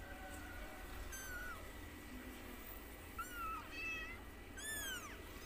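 White Persian kittens mewing: about four short, high-pitched mews, each rising and then falling in pitch.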